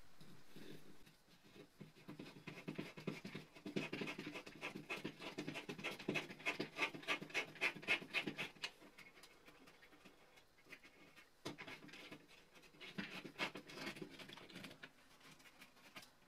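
Hand screwdriver turning a screw in a self-drilling drywall toggle anchor: rapid rhythmic scraping clicks, quickest and loudest through the first half, then a few scattered strokes.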